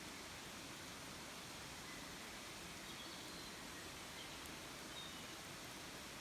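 Steady, quiet outdoor hiss of woodland ambience, with a few faint, short bird chirps in the distance.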